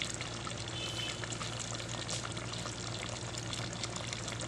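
Thick chicken afritada sauce simmering in a pot, with many small bubbles popping in a steady crackle and fizz. A low steady hum runs underneath.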